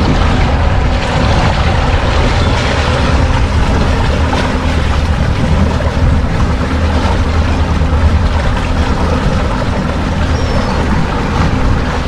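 Small fishing boat's engine running steadily, a low drone under a continuous rushing noise.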